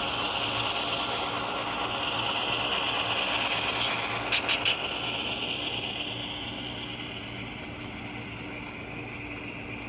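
HO scale model freight train rolling past, its metal wheels running on the track with a steady rattle that gets quieter in the second half. Three quick sharp clicks about four and a half seconds in.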